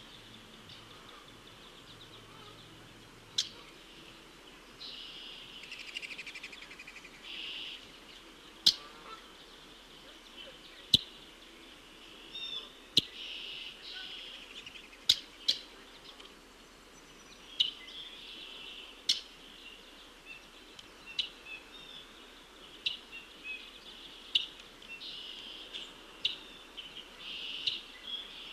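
Red-winged blackbirds calling: sharp chip notes scattered irregularly throughout, with several buzzy trills a second or two long between them.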